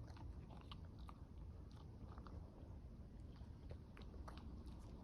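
A dog faintly crunching and chewing a treat, small scattered clicks over a low steady rumble.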